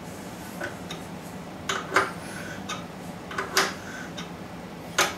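Sharp metallic clinks and ticks from a hand wrench turning a Morse taper 2 reamer, taking a light pass by hand to ream the bellmouthed taper bore of a milling machine spindle. About half a dozen irregular clinks, some with a brief ring, the loudest about two seconds in.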